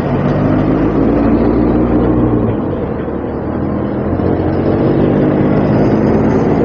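A light truck and then a large coach bus driving past close by: a steady engine drone, with the engine tone changing about two and a half seconds in as the bus comes through.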